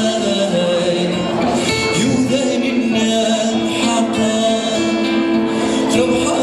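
A man singing a song while strumming an acoustic guitar, with long held notes.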